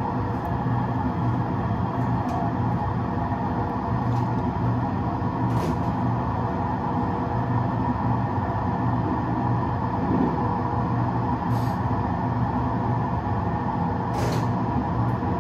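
Train driving simulator's cab sound: a steady low rumble of an electric train running at speed, played through the simulator's speakers, with a few short high clicks.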